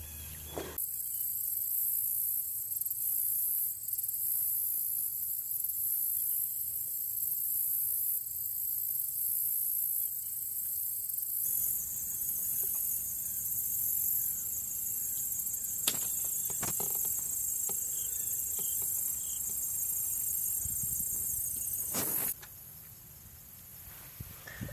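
Steady, high-pitched chorus of insects in woodland, which cuts off suddenly about 22 seconds in. A couple of sharp clicks sound in the second half.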